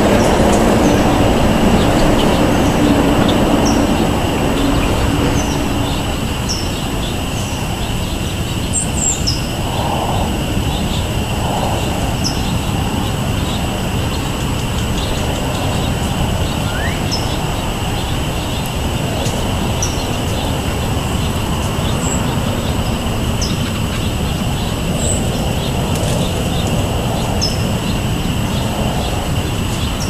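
A steady, loud, low rumble of background noise, with a low hum that fades out about a fifth of the way in. Short, high bird chirps sound every second or two over it.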